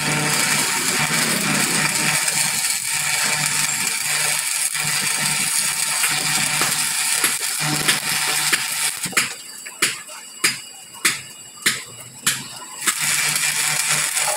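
Stick (arc) welding on a truck rear axle housing: the arc runs with a steady crackling hiss. For a few seconds past the middle the steady sound drops away, leaving about six sharp ticks about half a second apart, and then the crackling hiss comes back.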